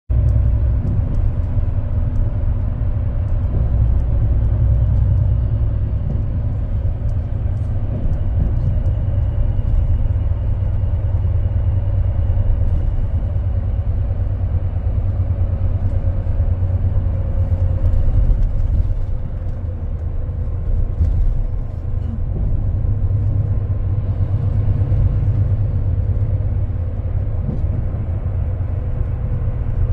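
Interior of a moving Korean wide-area seated express bus: a steady low engine and road rumble, with a fainter whine that slowly drops in pitch.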